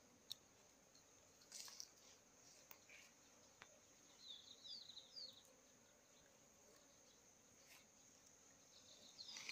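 Faint insect sound: a steady high-pitched drone, with a short run of quick chirps about four seconds in and a few faint clicks.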